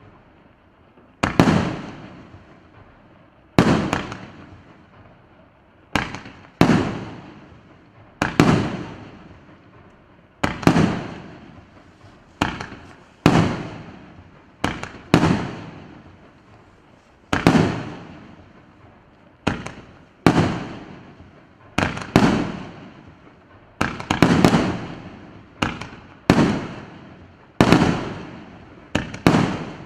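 A 25-shot, 2-inch consumer fireworks cake firing shot after shot. Each shot is a sharp bang with a fading echo, about one every second or two, coming faster toward the end.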